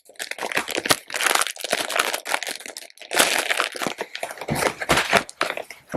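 Packaging of a charcoal dehumidifier pack crinkling and rustling as it is handled and opened, in dense irregular crackles with a short pause midway.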